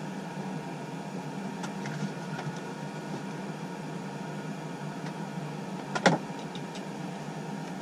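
Steady low hum inside a parked semi-truck's sleeper cab, with a few light clicks about two seconds in and a sharp knock about six seconds in as things are handled.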